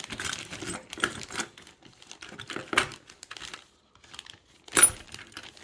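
A bag crinkling as hands rummage through it for small brass belt parts, with a sharp click about five seconds in.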